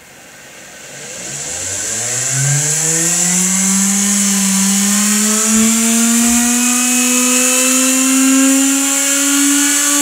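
Small reed-switch-triggered pulse motor spinning up from rest. Its whine climbs steadily in pitch and grows louder over the first few seconds, then settles into a steady high hum at about 17,000 RPM, with a high hiss above it.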